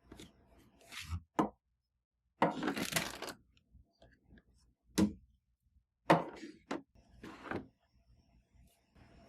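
Kitchen handling sounds: several short knocks and thunks of things being picked up and set down, with a longer rustling stretch about two and a half seconds in.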